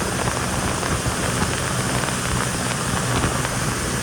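Yamaha jet ski engine running steadily, a low even hum under a constant rush of wind and water noise.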